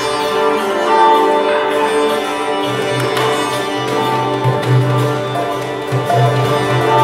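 Live sitar playing a melody over its ringing drone, with a koto alongside; about three seconds in, a low hand drum joins with a deep pulsing beat.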